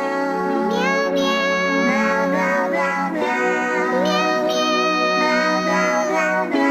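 Background music with a high, childlike synthesized singing voice holding long notes that slide between pitches over a steady low drone.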